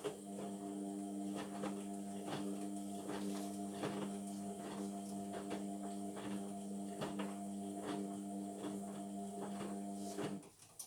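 Indesit washing machine turning its drum during the wash: a steady motor hum with irregular light knocks and clicks from the tumbling load. The hum stops about a second before the end, as the drum pauses between turns.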